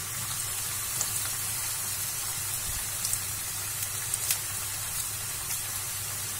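Vegetable Manchurian balls deep-frying in hot oil in a kadai: a steady sizzle with a few sharp crackling pops.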